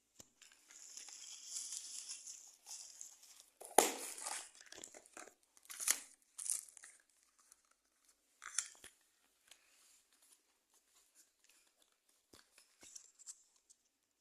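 Parcel packaging being torn open and crinkled by hand: a run of short rips and rustles, the sharpest about four seconds in, thinning to occasional light rustles in the second half.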